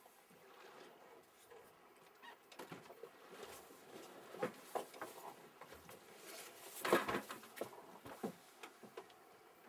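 A series of irregular knocks, taps and clatter, growing busier after a couple of seconds and loudest about seven seconds in.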